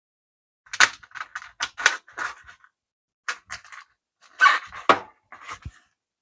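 A run of short scrapes, clicks and rustles in two bursts, from food being handled and toppings being put onto a tray of nachos.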